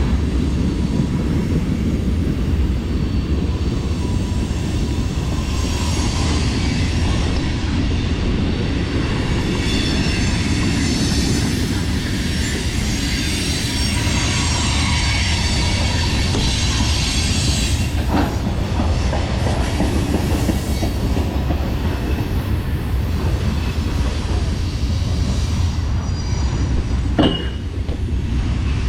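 BMX bike ridden with a POV camera: steady wind on the microphone and the rumble of tyres rolling over hard ground. Two sharp knocks, one just past the middle and one near the end.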